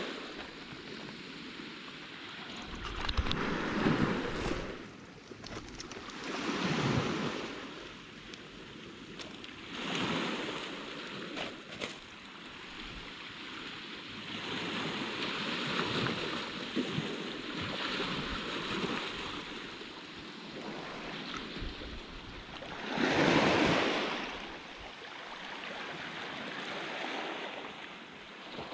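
Small waves washing onto a shallow shore: surf surging and falling back every few seconds, with one larger wash about four-fifths of the way through. There is some wind on the microphone.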